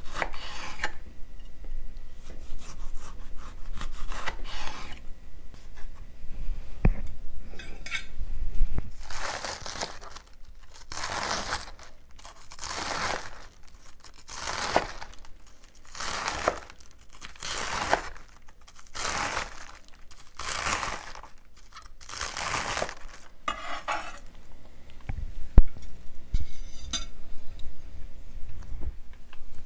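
Chef's knife cutting through iceberg lettuce on a bamboo cutting board: a steady run of crisp crunching strokes, about one a second, after some quieter cuts through a tomato. Near the end come a few knocks and clinks on the board.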